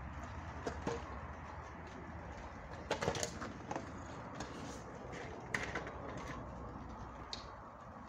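A few short clicks and knocks from a plastic hand-pump pressure sprayer being handled, the loudest cluster about three seconds in and another about five and a half seconds in, over a steady low background.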